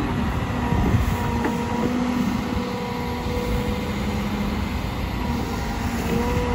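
Caterpillar M318F wheeled excavator's diesel engine and hydraulics running steadily under working load as the boom and bucket are moved, a constant hum with a brief dip and rise in pitch near the end.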